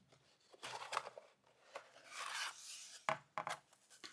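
Cardboard shipping box being handled and opened by hand: faint scraping and rubbing of the cardboard flaps, with a short click about three seconds in.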